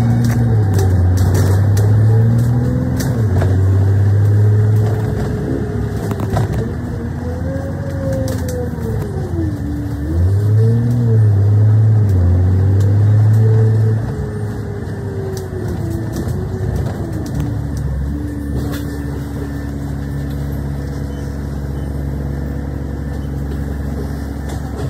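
Double-decker bus's diesel engine heard from inside the bus, its pitch rising and falling through gear changes as it drives, with light rattles. Just past halfway it quietens and settles into a steady idle as the bus stops.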